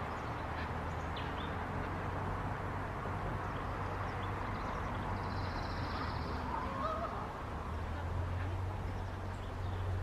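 Outdoor parking-lot ambience: a steady low hum under a wash of background noise, with scattered bird chirps and a brief higher call about five to seven seconds in.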